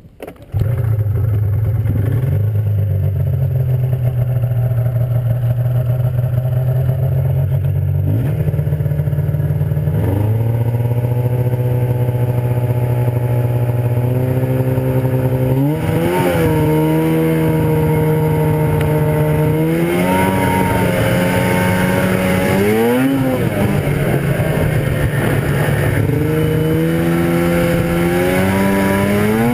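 1997 Arctic Cat ZR 440 snowmobile's two-stroke twin starts about half a second in and idles steadily. From about eight seconds on it is blipped with the throttle several times, the pitch rising and falling, and near the end it pulls away under throttle.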